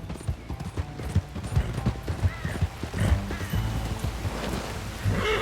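A horse's hooves clip-clopping at a walk over the ground, with background music underneath.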